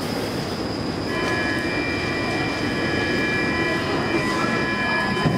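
Metro train rumbling through the station, with a high squeal of several steady tones that sets in about a second in and holds to near the end.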